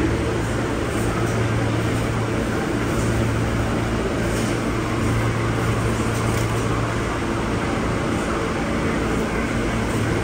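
Alstom R160A subway car running steadily through a tunnel: the even rumble of wheels on rail with a constant low hum underneath.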